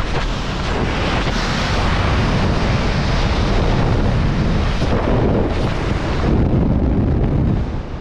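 Skydiving freefall wind blasting over a head-mounted camera's microphone: a loud, steady rush that eases near the end.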